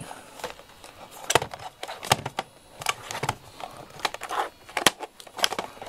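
Handling noise: about a dozen irregular clicks and small knocks with some rustling, as small objects are fumbled with by hand.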